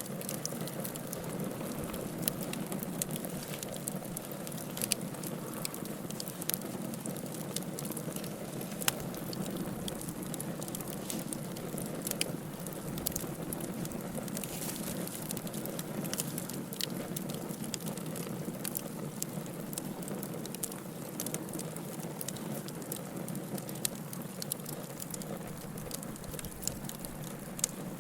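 Wood fire burning in a fireplace: a steady low rush of flame with frequent sharp crackles and pops at irregular intervals, the loudest about a third of the way in.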